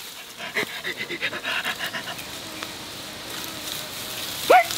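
Quick, uneven panting breaths, with one short rising vocal cry near the end.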